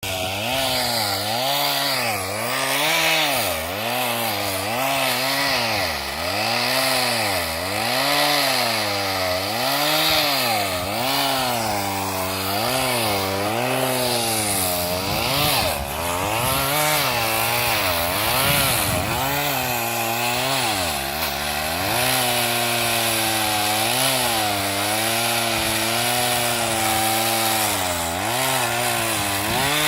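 Chainsaw running while cutting into wood, its engine pitch dipping and recovering roughly once a second as the chain loads up and frees. The swings become smaller and the pitch steadier in the last several seconds.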